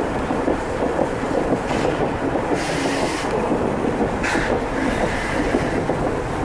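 Old railway carriage rolling along the track, heard from its open window: a steady rumble of wheels clicking over rail joints, with two brief higher-pitched bursts of noise about two and a half and four seconds in.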